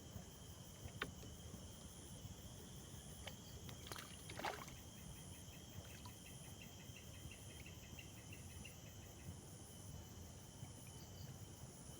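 Faint outdoor insect chorus, crickets chirring: a steady high whine with a rapid pulsing chirp running beneath it. Two short knocks stand out, one about a second in and a slightly longer one about four and a half seconds in.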